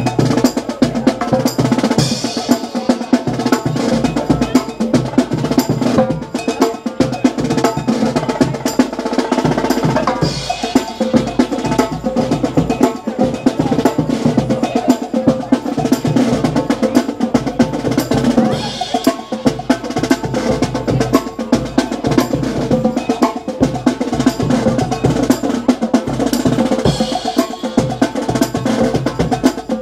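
Marching band drum line playing a marching cadence, with snare drum rolls over a bass drum beat.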